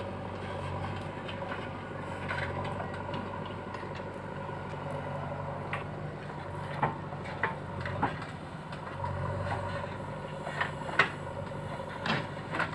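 Diesel engines of a JCB backhoe loader and a Mahindra tractor running steadily while the backhoe loads earth into the tractor's trolley. Sharp knocks and clanks from the bucket and dumped earth, a few about halfway through and more near the end.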